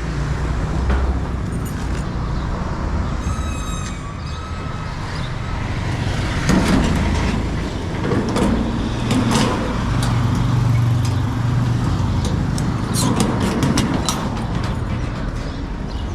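Motor vehicle engine running with a steady low hum, with scattered knocks and clicks over it and a short high chirp a few seconds in.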